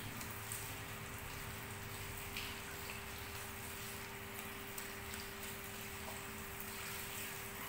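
Steady spray of water from a handheld shower head onto a person's hair, splashing into a salon shampoo basin as fingers work through the wet hair.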